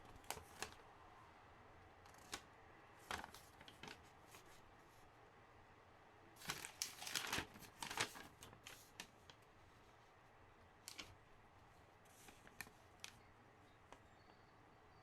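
Packaging being handled and opened: scattered light clicks and crinkles, with a short spell of denser rustling and tearing about six to eight seconds in.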